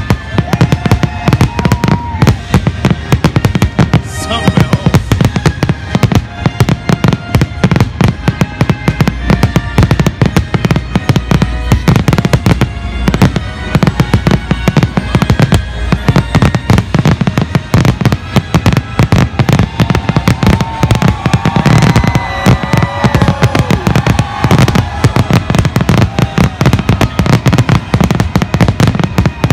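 Aerial fireworks display going off in a rapid, continuous barrage of bangs and crackles. Music plays underneath throughout.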